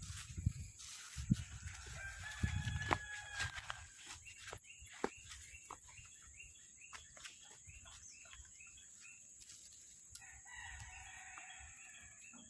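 A rooster crowing twice, once about two seconds in and again, longer, near the end, with scattered light clicks in between.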